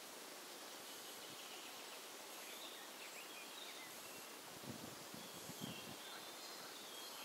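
Faint wetland ambience: a steady hiss with thin, high chirps of distant small birds, and a few soft low thumps a little past halfway.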